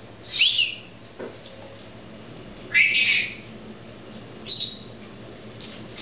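Caged parrot giving three short, high-pitched squawks spread over about five seconds; the second is the longest.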